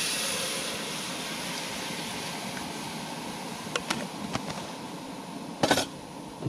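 Cold milk sizzling as it is poured into a hot butter-and-flour roux in a steel pot on a propane camp stove; the hiss is loudest as the pour begins and fades slowly. A few light clicks come about four seconds in, and a short loud clatter near the end.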